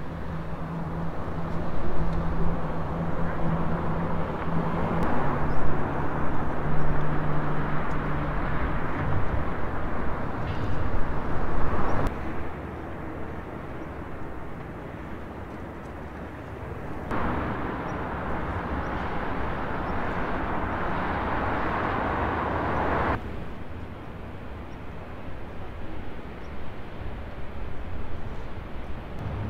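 Outdoor ambience: a steady rushing noise with a low hum in the first several seconds. The sound changes abruptly a few times.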